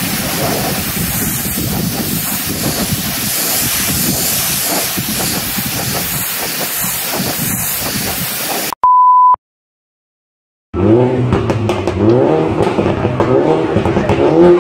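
Kärcher K MINI pressure washer jet hissing steadily as it blasts a concrete surface, ending abruptly after about nine seconds with a short single-pitch beep. After a moment of silence, a car engine revs up and down.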